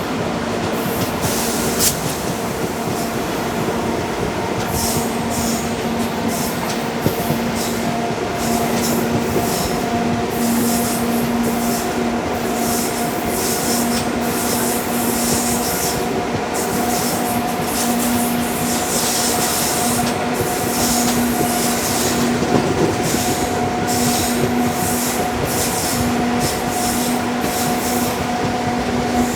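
Express train running on the track: a steady rumble of wheels on rails, with high-pitched squeals and hisses that come and go all through, and a faint steady hum underneath.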